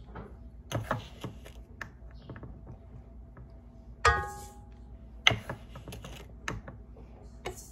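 Kitchen utensils clicking and knocking against a mixing bowl as sugar is measured into the butter. The loudest, a ringing clink, comes about four seconds in.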